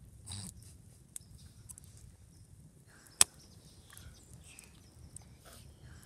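Wood fire in a fire pit crackling, with scattered small pops and ticks and one sharp, loud pop about three seconds in.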